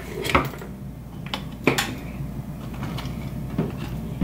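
A few clicks and knocks as an Apple II Plus keyboard is handled and turned over, the loudest about one and a half seconds in, over a low steady hum.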